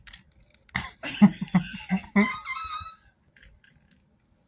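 Domestic cat chattering: a sudden start followed by a quick run of about five clucking chirps over a second and a half, the excited chatter of a cat watching for prey.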